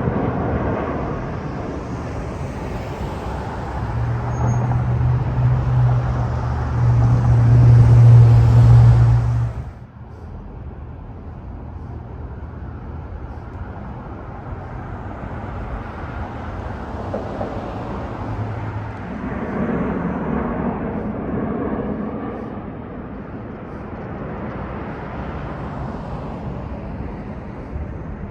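Road traffic noise with vehicles going by. A heavy low engine drone builds from about four seconds in and is loudest near eight seconds. About ten seconds in everything drops away suddenly, leaving quieter steady road noise.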